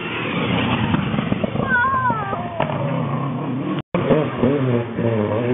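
Rally cars passing at speed: a red Subaru Impreza rally car's engine running hard as it goes by, then, after an abrupt cut about four seconds in, a second rally car's engine revving, rising in pitch near the end as it accelerates.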